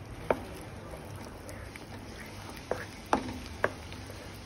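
Cooking spoon stirring fried chicken pieces into a thick sauce in a nonstick wok, knocking against the pan: one sharp clack just after the start and three more close together about three seconds in.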